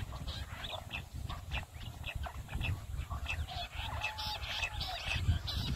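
Jungle bush quail calls: a fast, continuous run of short, high chirps, thickening toward the end, used as the lure to draw quail into cage traps.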